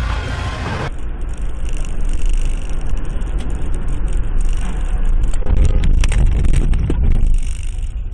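Car driving noise: a steady low rumble of engine and tyres that swells louder, with a cluster of sharp knocks about five to six seconds in.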